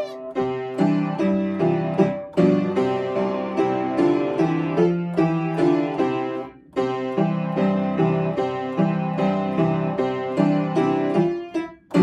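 Upright piano played with both hands, a lively children's-song arrangement with a bass line under the melody. The playing breaks off briefly about two-thirds of the way through and again just before the end, between phrases.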